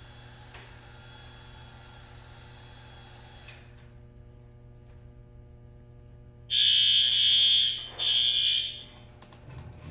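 Fire alarm horn sounding two loud blasts, the first a little over a second long and the second shorter, with a brief gap between, over a steady low electrical hum.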